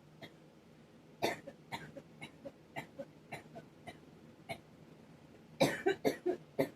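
A person's coughing fit brought on by pollen. It starts with one hard cough about a second in, runs on as a string of smaller coughs, and ends in a louder cluster of coughs near the end.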